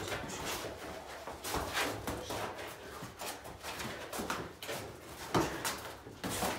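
Boxing gloves landing punches and sneakers shuffling and scuffing on a concrete floor during sparring: a string of irregular thuds and scuffs, the sharpest a little past five seconds in.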